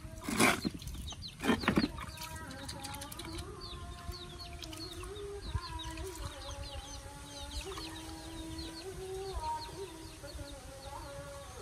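Water splashing twice in a plastic basin as a baby monkey moves in its bath. After that, many short high chirps run over a held tone that shifts pitch in steps.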